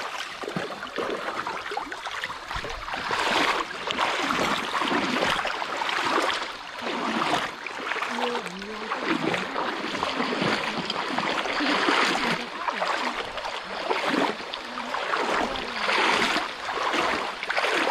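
Running stream water, rushing and swishing, with the noise swelling and fading unevenly every second or two.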